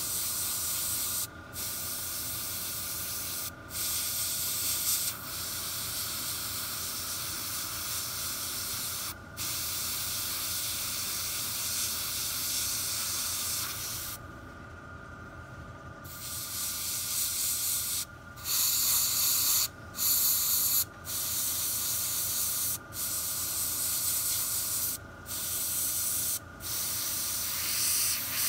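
Airbrush spraying paint as a light mist, its air hiss cutting off and restarting many times in brief gaps between passes, with a longer pause about halfway through.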